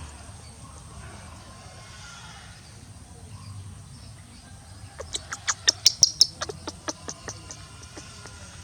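A rapid run of about a dozen sharp, high-pitched animal chirps starting about five seconds in, loudest in the middle and fading over about two seconds.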